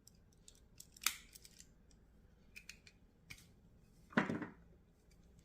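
Small hand tool working on headlight wiring: light clicks with a sharp snip about a second in and a louder crunching squeeze around four seconds in, as a wire is cut or a connector crimped.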